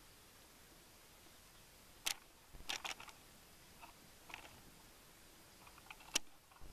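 Handling noise from a handheld camcorder being turned around in the hand: a few short, sharp clicks and knocks. One comes about two seconds in, a cluster near three seconds, and the sharpest near the end.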